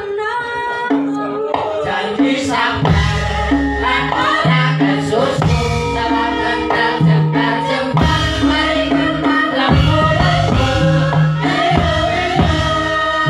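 Live stage band music with singing: a melody starts up and a steady low drum beat joins about three seconds in.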